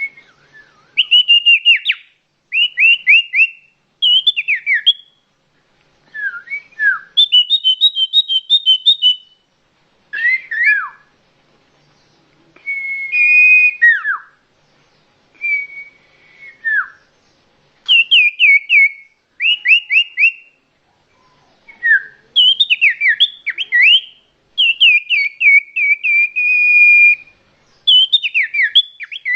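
Common iora (cipoh) calls played as a bird-lure recording: clear, loud whistled phrases of quick falling notes and short trills, repeated in bursts of a second or two with short gaps between them.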